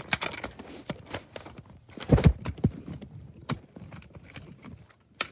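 Plastic clicks and knocks from a First Alert SA304 smoke alarm being handled, as a battery is fitted and the alarm is worked against its mounting bracket, with one heavier thump about two seconds in.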